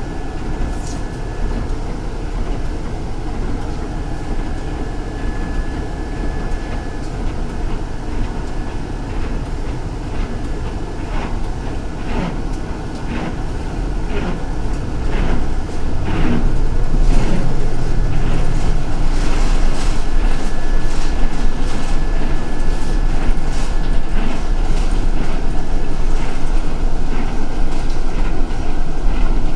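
MTA city bus running, heard from inside the cabin: a steady engine and road rumble with rattles and knocks. It gets louder about halfway through.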